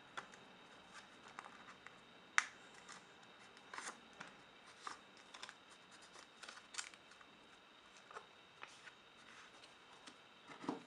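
A small sheet of paper being handled and folded by hand: faint, irregular crinkles and crease sounds, with a sharper paper snap about two and a half seconds in.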